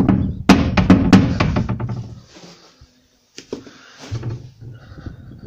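Claw hammer tapping on a wooden cupboard frame: a quick run of sharp knocks in the first two seconds, the loudest about half a second and a second in, then a few lighter knocks. The taps ease the loose side of the frame out so the cupboard doors meet without twist.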